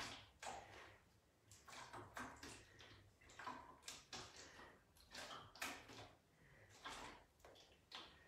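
Faint, repeated short swishing sounds, about one or two a second, from a person doing one-arm bent-over tricep kickbacks with a large plastic container as the weight.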